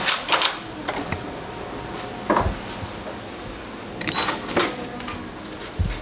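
A run of sharp clicks and knocks: a door swinging and latching, then a few quick clicks about four seconds in as an elevator call button is pressed.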